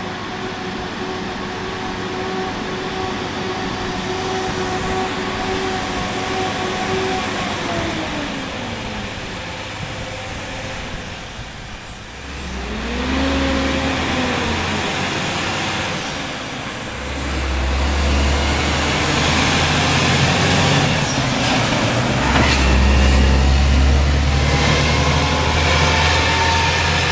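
Mack truck's diesel engine hauling a load of lumber, heard passing close by. A steady engine note first drops in pitch, then the engine pulls hard in three rising stretches with short dips between them, likely gear changes, and a faint high whistle rises and falls with each stretch.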